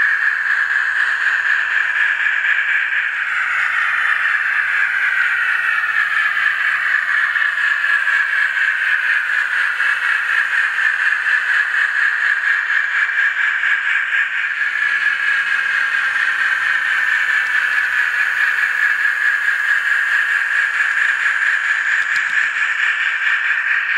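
The onboard sound decoder of an Athearn N scale 4-6-6-4 Challenger steam locomotive plays steady, hissing steam running sounds through the model's tiny speaker, which leaves the sound thin and mid-pitched.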